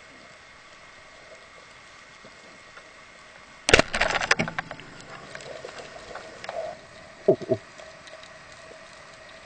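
Rubber-band speargun fired underwater: a sharp crack about four seconds in as the bands release, followed by a brief clattering rattle. Two smaller knocks follow about three seconds later.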